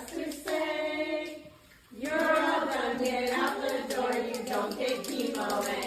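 A group of voices singing together, breaking off briefly about a second and a half in and then carrying on.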